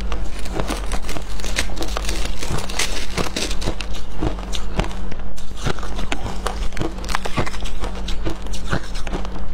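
Shaved ice crunching and crackling densely as a metal spoon scoops through a tub of it and mouthfuls are chewed. A low steady hum runs underneath.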